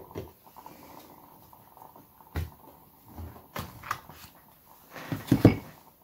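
A deck of tarot cards being handled and shuffled, with a few sharp taps, then a louder knock near the end as the deck is set down on the wooden table.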